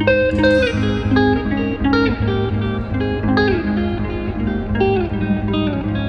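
Background music: a melody of plucked guitar notes over a steady low drone.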